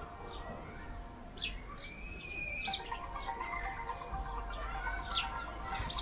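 Sparrows chirping: a few short, sharp, scattered chirps, the loudest near the end, over soft background music.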